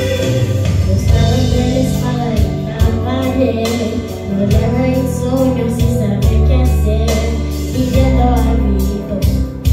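A young girl singing a gospel song into a handheld microphone over an instrumental accompaniment with sustained bass notes; her melody rises and falls in long held phrases.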